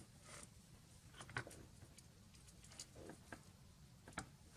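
Near silence with a few faint, short clicks and taps: small handling noises of wire and soldering tools at a workbench.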